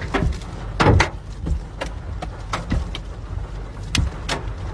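Hailstones striking the car and its cracked windscreen in irregular sharp knocks, over the steady rumble of the car driving. The loudest hit comes about a second in.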